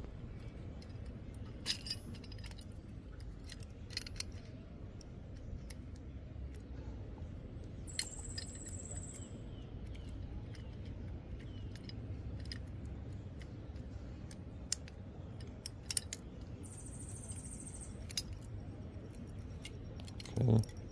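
Small metal clicks and clinks of a 4 mm Allen wrench and a spanner wrench against a steel screw, nylock nut and bracket as the screw is tightened by hand, over a steady low background hum. Two short, faint high-pitched tones come in the middle and later on.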